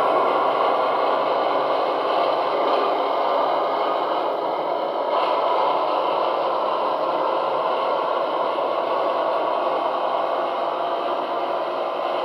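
Gauge 0 model of a DB V100 diesel locomotive running along the track. It gives a steady rushing, scraping running noise that slowly fades as the locomotive moves away.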